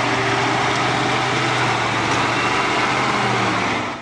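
Loaded six-wheel dump truck's diesel engine running steadily as the truck drives slowly, fading out at the very end.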